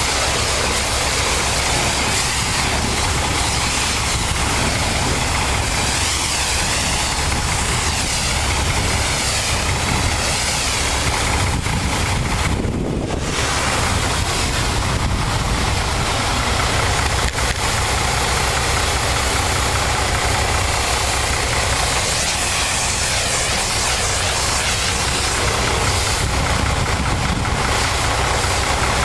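High-pressure washer wand spraying water onto a semi truck's cab and wheels: a steady hiss of spray, with a steady engine hum underneath. The spray hiss drops out briefly about halfway through.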